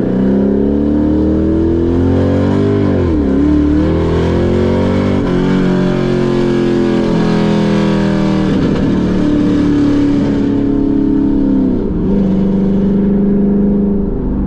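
Chevrolet Camaro's 6.2-litre V8 accelerating hard, its pitch climbing and then dropping sharply at each of several gear changes.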